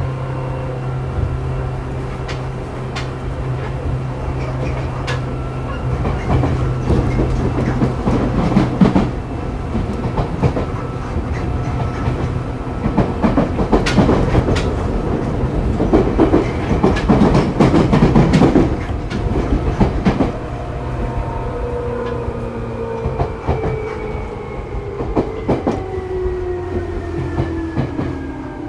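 Seibu 2000 series field-chopper electric train heard from on board, running with the wheels clacking over rail joints, loudest in the middle. Near the end the motor whine falls steadily in pitch as the train slows for the next station.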